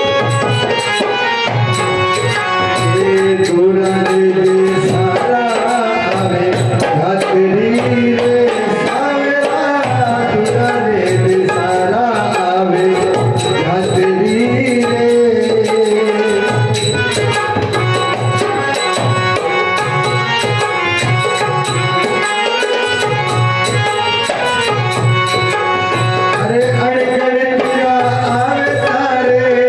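Instrumental stretch of a devotional bhajan: a gliding melody line over a steady, repeating drum rhythm.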